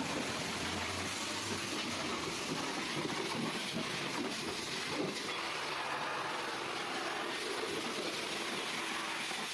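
Car-wash machinery running steadily, a continuous hiss with a faint hum underneath, as from a pressure-washer pump and spray or a car vacuum.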